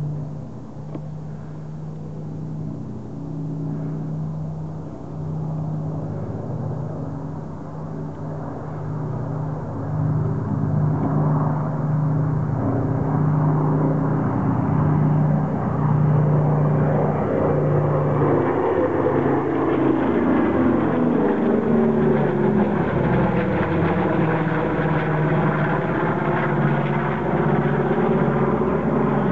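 A formation of vintage piston warbirds (B-25 Mitchell, P-38 Lightning, F4U Corsair) and two Alpha Jets flying over. A steady engine drone builds as they approach, then the pitch sweeps down as they pass overhead.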